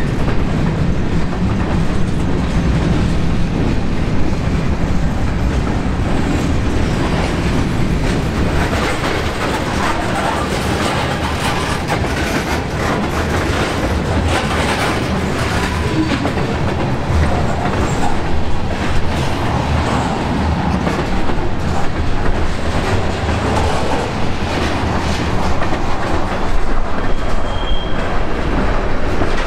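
Freight train of covered hopper cars and tank cars rolling past on the nearest track: a steady rumble of steel wheels on the rails with clicking and clanking.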